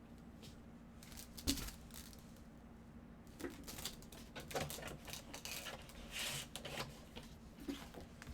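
Autographed 8x10 photos being handled and shuffled: rustling and light clicks, with a sharp tap about a second and a half in.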